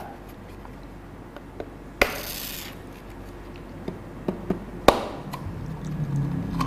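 Kitchen knife striking a whole dehusked coconut to crack the shell open: a few sharp knocks, the loudest about two seconds in and just before five seconds, with lighter taps between.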